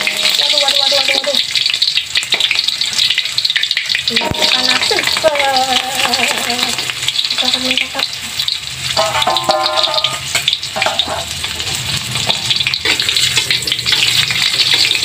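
Sliced shallots frying in hot oil in a wok, giving a steady sizzle.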